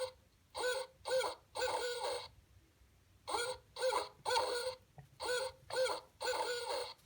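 Barred owl call: three hooted phrases of three notes each, the last note of each phrase drawn out, the "who cooks for you" pattern.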